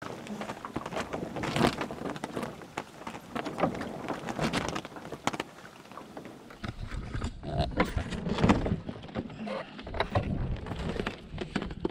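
Small sailboat drifting in a near-calm: water lapping and splashing against the hull, with irregular knocks from the boat and rig. About seven seconds in, a low rumble joins.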